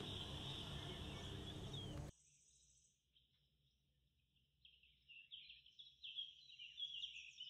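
Faint room hiss that cuts off abruptly about two seconds in. It is followed by faint, high, short bird-like chirps that come more often near the end.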